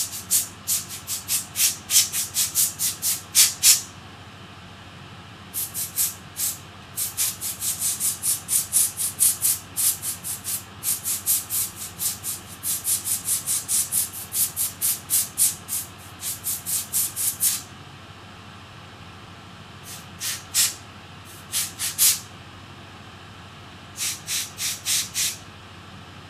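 Air blown in rapid short puffs, about three to four a second, clearing dust off a laptop heatsink. The puffs come in several runs with short pauses between them.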